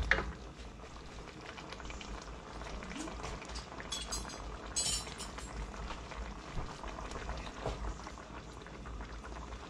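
Chicken curry in coconut milk bubbling at a simmer in a pan, a steady crackling bubble, with a few short clicks about four and five seconds in.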